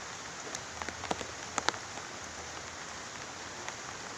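Steady rain falling, an even hiss with scattered sharp drop hits, a couple of them louder about one and a half seconds in.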